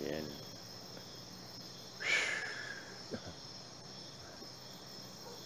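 Crickets chirping steadily, a high continuous trill. About two seconds in comes one brief, louder sound that falls in pitch.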